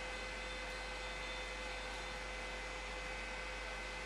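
Room tone: a steady hum and hiss with a few faint steady tones, unchanging throughout.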